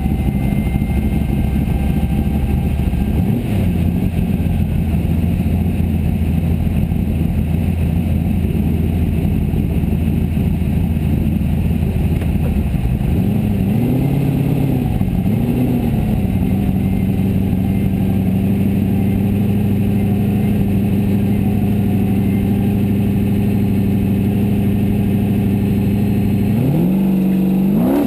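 Formula Offroad buggy's engine heard from inside the cockpit. It idles, is blipped twice about halfway through, then is held at higher revs before revving up hard near the end as the car launches up the hill.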